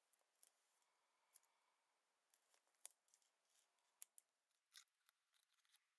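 Very faint snips of small craft scissors trimming foam tape: a few scattered clicks, the sharpest about three seconds in.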